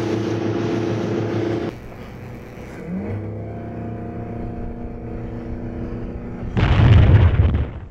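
Motorboat engine running steadily. After a cut about two seconds in, a quieter engine note rises in pitch about three seconds in and settles into a steady hum. Near the end a loud, rough rushing noise lasts about a second, then cuts off suddenly.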